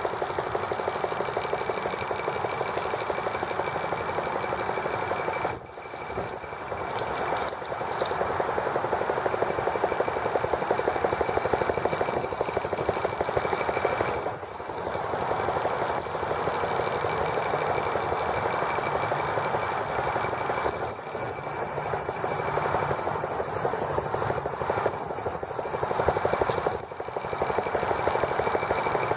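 Small model gasoline engine of a T26 toy tractor running steadily as the tractor drives along the ground, a rapid even firing rhythm with a thin high whine alongside. Its level dips briefly a few times.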